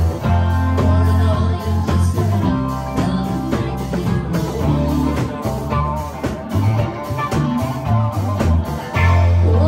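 Live rock band jamming: several electric guitars playing over a moving bass line and drums, loud and continuous.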